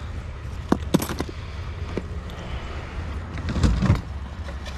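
Scattered knocks and clatter of junk being handled in a curbside scrap pile, with the largest clatter about three and a half seconds in, over the steady low rumble of an idling truck engine.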